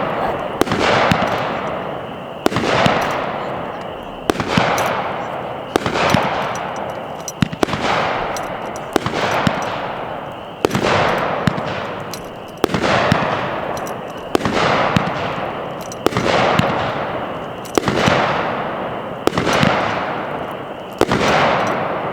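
A Smoking Alien 'Weasels' 16-shot 200-gram firework cake firing tube after tube, about one shot every one and a half seconds. Each shot is a sharp bang followed by a crackling hiss of strobing stars that fades away before the next.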